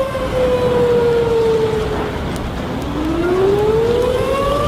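Outdoor civil-defense tornado warning siren wailing, its pitch sliding slowly down and then rising again about halfway through, over a steady low rumble.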